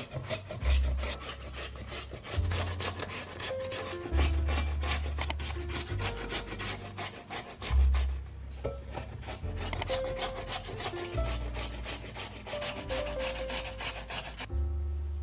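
Raw peeled potato being grated by hand on a plastic grater with metal cutting strips: a fast run of rasping scrapes, stroke after stroke, with background music underneath.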